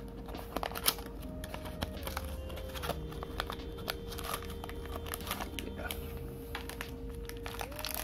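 Small cardboard toy box being handled and its end flap worked open, a string of light clicks, taps and card scrapes.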